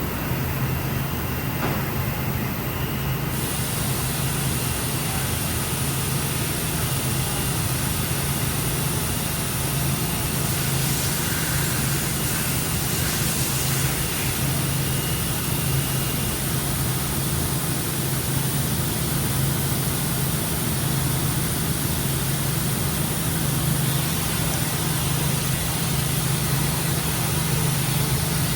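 Parpas Diamond 5-axis gantry machining center running: a steady low hum with an even hiss over it.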